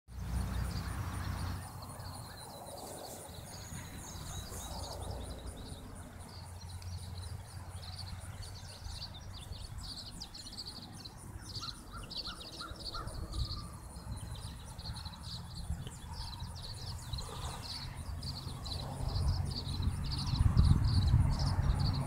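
Small birds chirping in many quick, high, repeated notes, with a short run of four or five lower notes about halfway through. Wind rumbles on the microphone and grows stronger near the end.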